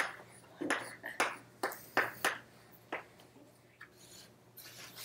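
Chalk tapping and scraping on a chalkboard as a word is written by hand: a quick series of short strokes, most of them in the first three seconds, with a few fainter ones after.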